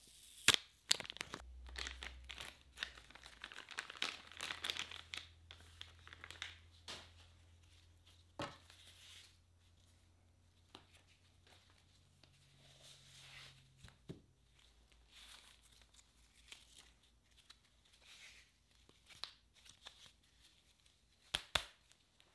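Plastic wrapping of camera accessories crinkling and rustling as they are unpacked from the box, busiest in the first few seconds. Scattered handling rustles and clicks follow, with a sharp click near the end.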